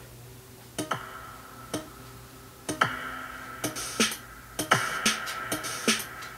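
Electronic dance music, dubstep-style: a slow drum-machine beat with a strike about once a second and lighter ticks between, and a held high synth note coming in about three seconds in.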